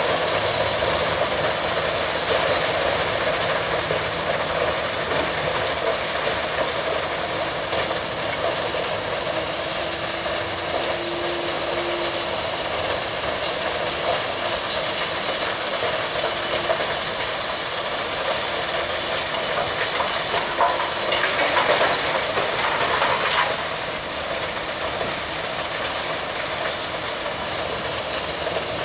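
Steady running noise of a moving vehicle heard from inside, a continuous rumble and rattle. Late on there is a louder hissing stretch of about two seconds.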